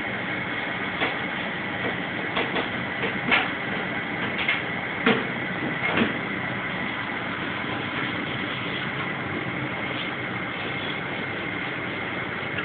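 A steady mechanical hiss with a constant high whine, and over it a few light metallic clicks and knocks in the first half as the exposed twin screw rotors of an Atlas Copco GA122 compressor are turned by hand, their lobes and shafts shifting against each other.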